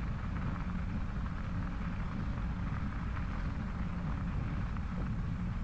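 Steady low rumble and hiss of a bicycle ride on a wet gravel trail: wind buffeting the microphone and tyres rolling over the damp crushed stone, with no change throughout.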